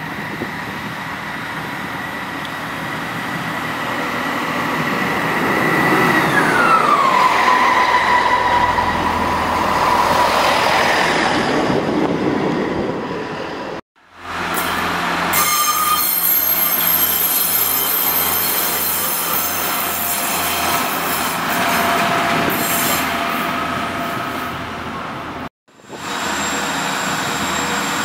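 Diesel multiple-unit trains on the platform line. The first draws in with a high squeal that drops in pitch about six seconds in as it slows. After a sudden cut a second unit runs past with a low rhythmic beat about twice a second, and after another cut a third train is heard passing.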